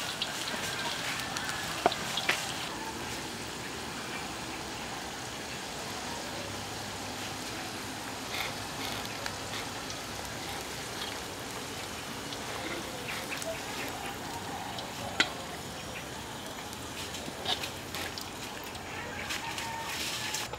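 Hot oil sizzling and bubbling steadily in a wok as strips of food deep-fry, with a few sharp clicks of metal tongs against the wok.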